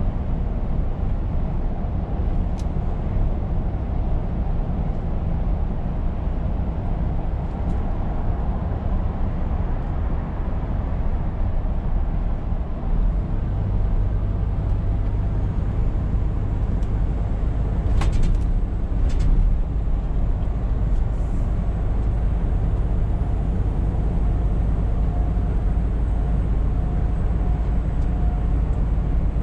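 Scania R520 truck under way: steady low engine rumble mixed with road and tyre noise, the bass growing heavier about halfway through. Two short clicks sound a little past the middle.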